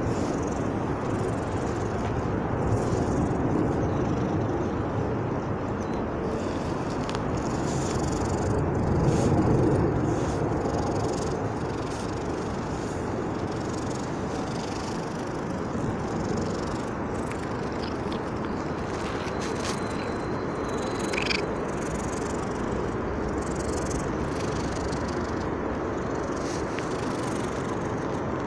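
Cat purring steadily close to the microphone: a continuous low rumble.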